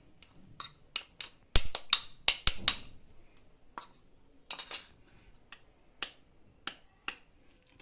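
Steel spoon knocking and scraping against a ceramic bowl and a steel mixing bowl as chilli powder is spooned out: a string of sharp clicks and knocks, the loudest about one and a half and two and a half seconds in. Lighter taps near the end as an egg is cracked open.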